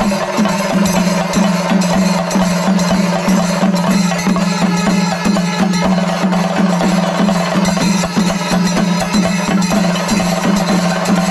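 Kerala temple-festival percussion ensemble playing: rapid, even drumbeats over a steady ringing tone, with no pause.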